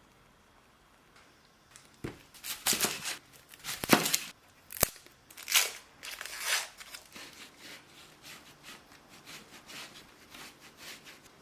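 Dry crinkling and tearing in a run of short bursts, with one sharp click a little before the five-second mark, then faint light rustling.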